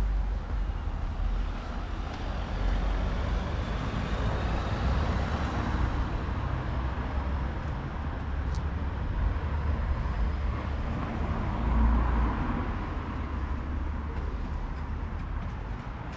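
Road traffic: cars passing, with a steady low rumble and swells as vehicles go by, and one brief click about halfway through.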